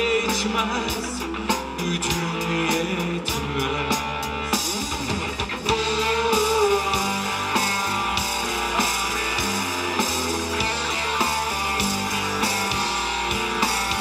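Live rock band playing through the PA: electric guitars over a drum kit.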